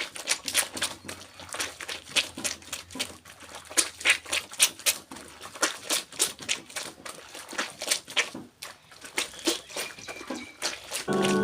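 Clothes being hand-washed in water: a quick, irregular run of splashes and wet squelches as the fabric is scrubbed and slapped in the basin. Music comes in near the end.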